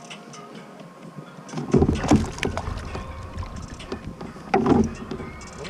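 Sounds of a fishing kayak moving on the water, with two louder bursts: one about two seconds in and a shorter one near the end.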